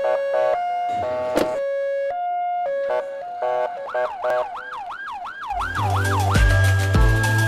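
Ambulance siren, first alternating between two pitches in a hi-lo pattern, then switching about halfway to a fast rising-and-falling yelp about three times a second, then holding one steady high tone near the end. A music track with a heavy bass beat comes in just after the yelp starts.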